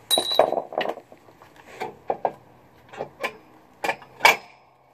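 Metal clanks and knocks as a steel wedge brake shoe and its hardware are worked into place on a military 5-ton truck's rear brake assembly. A quick clatter at the start, then single knocks about every half second, the loudest near the end.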